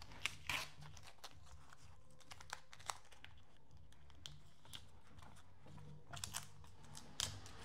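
Faint, scattered clicks and light taps of cut pieces of engineered wood flooring being handled and sorted.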